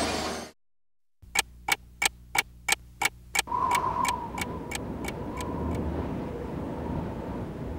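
After a short silence, a sharp, even ticking starts, about three ticks a second, and fades away over a few seconds. A steady background noise runs underneath.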